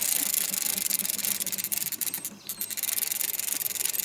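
Spinning reel being cranked to bring in a hooked fish: a steady gritty whirr with fine rapid ticks, pausing briefly about halfway through.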